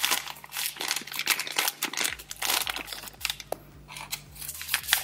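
Clear plastic bag and powder sachet crinkling and rustling as they are handled, a continuous run of crackles.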